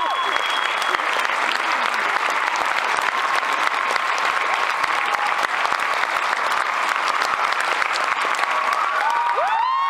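Audience applauding, with scattered cheers and a rising whoop near the end.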